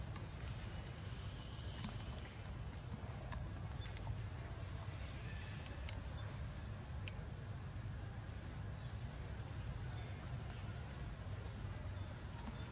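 Steady high-pitched insect chorus holding two continuous tones, over a low rumble, with a few faint scattered clicks.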